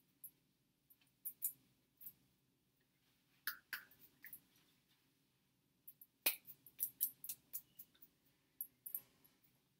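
Faint, irregular clicks and light slaps of hands striking and brushing together during sign language, in two flurries: one about three and a half seconds in and a longer one from about six to nine seconds in.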